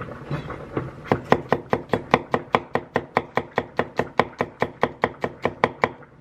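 Kitchen knife rapidly chopping garlic on a cutting board: quick, even strokes, about five a second, starting about a second in.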